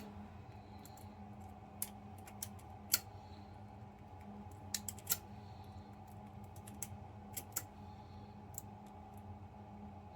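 Light, irregular metal clicks of a lock pick and tension wrench working the pins of a Bunker Hill Security 50 mm padlock, some in quick pairs, while the picker tries to zip it open. A steady low hum runs underneath.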